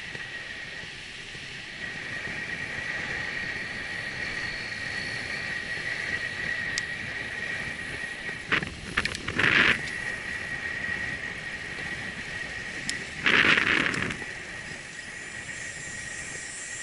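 Bicycle ride on a paved trail at about 20 km/h: steady tyre and wind noise with a constant high whine. Two brief, louder noises come around the middle and again a few seconds later.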